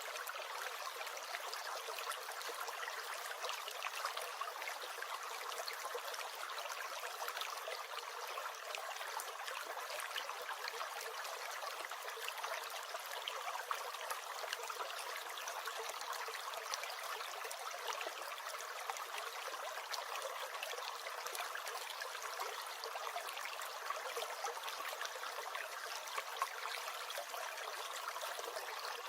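Small stream gurgling and trickling steadily, a light, even water sound with no deep rumble.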